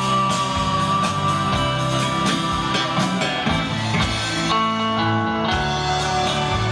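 Guitar-led band music with a steady beat and no singing.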